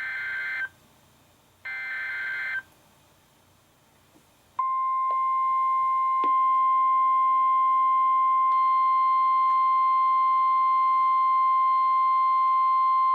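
NOAA Weather Radio SAME digital data: two short, harsh data bursts about two seconds apart, the end-of-message code closing the previous broadcast. Then, about four and a half seconds in, the steady 1050 Hz warning alarm tone begins, announcing a new warning, and a second or so later several other steady tones from the weather radios' own alerts join it.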